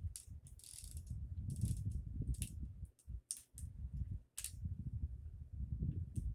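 Plastic Lego Technic gears clicking and ratcheting irregularly as a hand turns the gear that extends the mobile crane's telescopic boom, over low rumbling handling noise.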